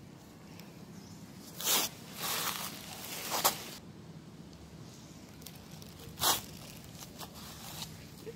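A few brief rustling, rubbing noises from latex-gloved hands working over a dog's fur and ear, the loudest about two seconds in and again about six seconds in, over a faint low hum.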